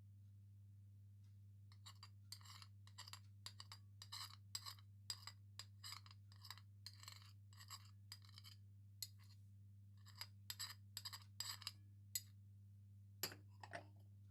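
Kitchen utensil clinking and scraping against a bowl in many short, irregular strokes, faint over a steady low hum.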